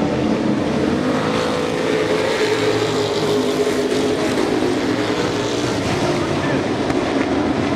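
A pack of Super Pro race trucks at racing speed, several engines running together loud and steady, their pitches drifting slowly up and down as the trucks work through the turns.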